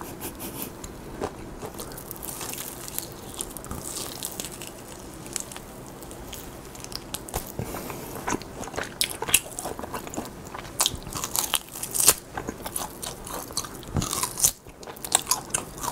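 Close-miked biting and chewing of grilled lamb meat, with crisp crackly snaps and wet mouth clicks that become busier and louder about halfway through.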